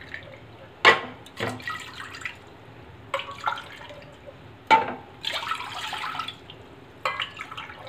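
Water poured from a small steel tumbler into an aluminium pressure cooker, splashing onto the steel stand in the bottom for about a second, about five seconds in. Before it, a few sharp metallic clinks.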